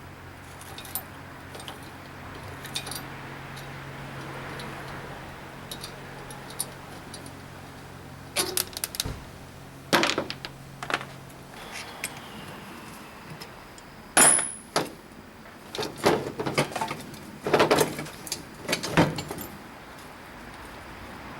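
Metal clinking and knocking as a bicycle pedal crank is worked off with a ratchet handle: a scatter of sharp metallic knocks, thickest in the second half. A low steady hum stops about halfway through.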